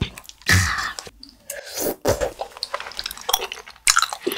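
Close-miked eating sounds: a loud breathy exhale after a drink of water, then wooden chopsticks clicking and scraping against a plastic takeout container as they pick up rice cakes from thick rosé sauce.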